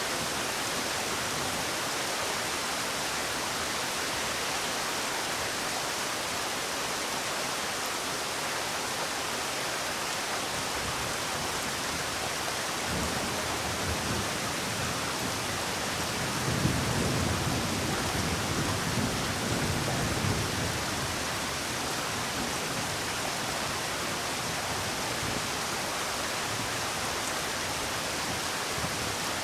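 Steady rain falling, an even hiss. In the middle a low rumble swells for several seconds and fades again.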